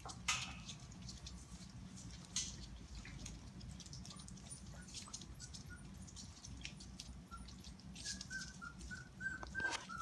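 Four-week-old Goldendoodle puppies: faint scattered clicks and taps as they move around their dishes, then from about eight seconds in a run of short, high squeaks, several a second, the whimpering of young puppies.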